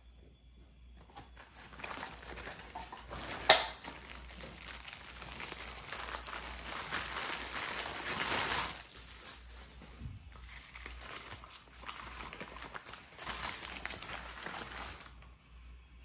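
Kraft packing paper and a plastic bag crinkling and rustling as ceramic dishes are unwrapped by hand, loudest about halfway through. A single sharp knock comes about three and a half seconds in.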